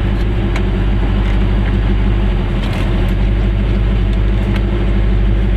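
Steady engine hum and road noise inside the cabin of an older car driving along at a constant pace.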